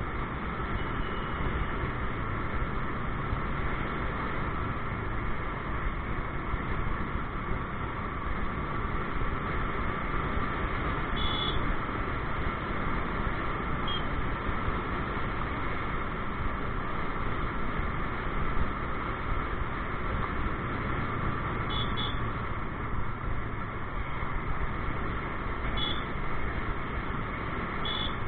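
Steady running noise of a motorcycle on the move: engine and tyre noise mixed with wind rushing over the mounted camera's microphone. A few brief high beeps cut through it.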